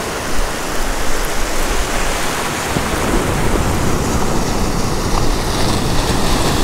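Steady rush of ocean surf with wind on the microphone, the low rumble getting heavier about two and a half seconds in.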